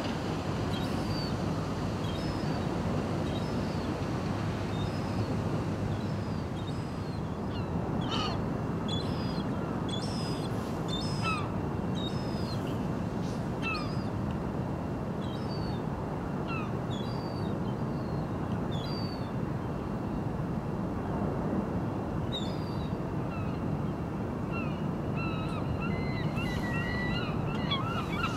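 Birds calling in short scattered calls, with a quicker run of calls near the end, over a steady low rumble.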